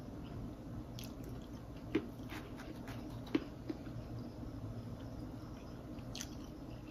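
Quiet eating sounds: plastic forks picking at saucy fries and fish in foam takeout containers, with a few soft clicks and wet smacks, the sharpest about two and three and a half seconds in. A low steady hum runs underneath.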